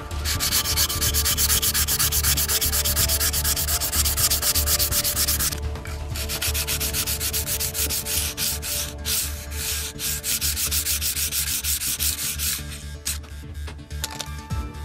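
Sandpaper rubbed back and forth in quick strokes over the putty-filled seam of a plastic model ship hull, smoothing the seam away. The strokes are dense and even at first, break off briefly a little before halfway, then come more unevenly and trail off near the end.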